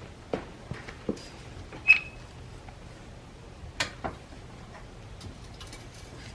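Scattered clicks and knocks of metal tools and wheel hardware being handled during a wheel change, with one sharp ringing metal clink about two seconds in, over a low steady hum.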